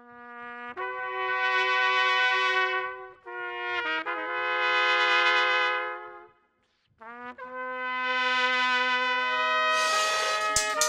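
Trumpet music: long held notes in slow phrases, with a brief break about three seconds in and a short silence a little past six seconds. Near the end a second held note sounds with the first.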